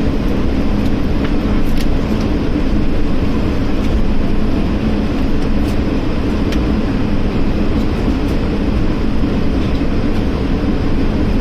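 Steady cabin noise inside an Airbus A220-300 airliner: an even rumble of its Pratt & Whitney PW1500G geared turbofan engines and airflow, with a few faint clicks.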